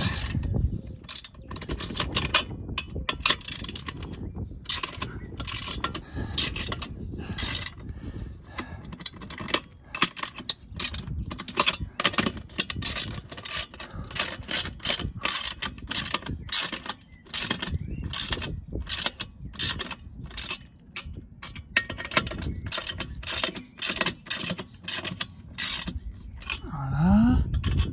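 A wrench tightening the bolts of an antenna mast clamp: a long run of quick, irregular metallic clicks.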